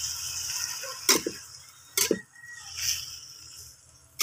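Raw pork pieces sizzling in a wok of rendered pork fat, the sizzle dying down over the first second. A spatula knocks against the pan about a second in and twice around two seconds, with a sharp click at the end.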